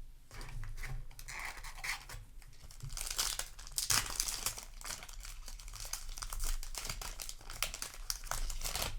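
A Yu-Gi-Oh! booster pack's foil wrapper crinkling and being torn open by hand, a dense run of crackles and sharp rustles.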